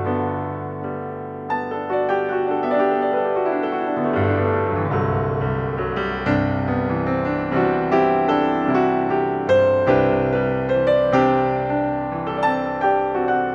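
Background piano music, a gentle melody over held chords.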